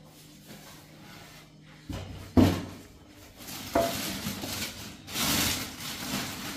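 A metal clank about two seconds in, as the lid of a large stainless-steel storage container is handled, followed by a plastic bag rustling and crinkling as it is pulled out of the container.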